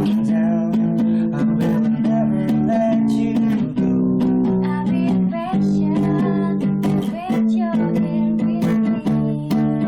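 Music: a song led by strummed acoustic guitar, with steady held low notes under a wavering melody line.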